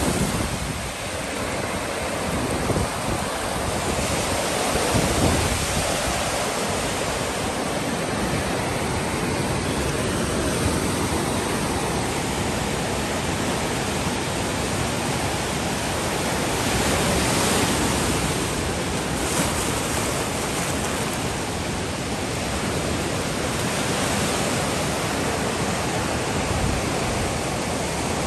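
Waves breaking and washing up onto a sandy lake beach in a steady, continuous rush of surf. Wind buffets the microphone in uneven low rumbles during the first few seconds.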